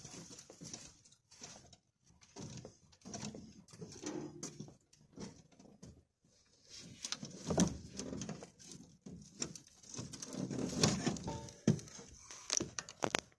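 Irregular footsteps and scuffing of a person walking a trail while carrying a canoe overturned on his shoulders, with a few sharper knocks near the end.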